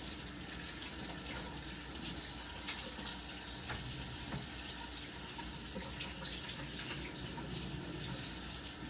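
Kitchen sink tap running steadily while raw turkey wings are rinsed under the stream, with a few faint knocks of handling.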